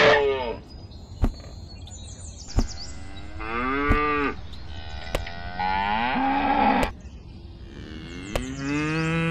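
Cows mooing: three drawn-out moos, each about a second long, with short sharp taps between them.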